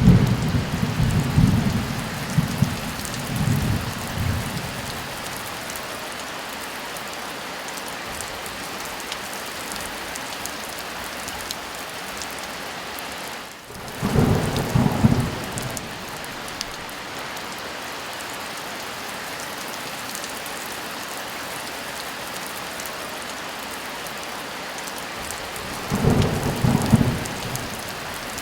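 Heavy rain falling steadily, with three low rolls of thunder: a rumbling one of about four seconds at the start, a shorter one about halfway through, and another short one near the end.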